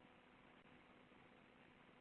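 Near silence: a faint steady hiss with a low hum, room tone through a small, low-quality microphone.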